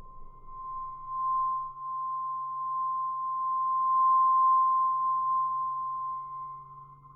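Film score under the end credits: one high pure tone held steadily over a low humming drone and a faint pulsing middle tone. It swells about a second in, is loudest midway, and fades near the end.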